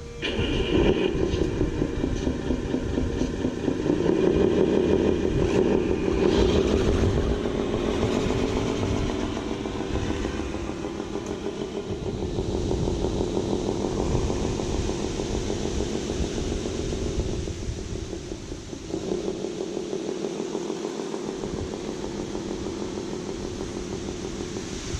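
Radio-controlled truck's motor running, its pitch rising and falling as it drives, with wind buffeting the microphone.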